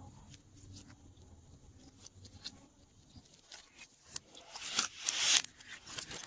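Glossy slime being worked by hand, with scattered sticky clicks and pops and a louder squelching squish about five seconds in.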